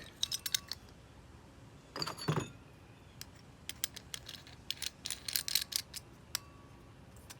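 Light, irregular metal clicks and rattles of a carbon steel hole saw being fitted and threaded onto its mandrel by hand.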